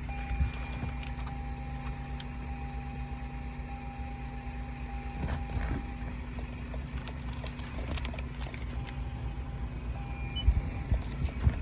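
A car engine idling steadily, with a steady high electronic tone over it for about the first six seconds and again briefly later. A few sharp knocks come near the end.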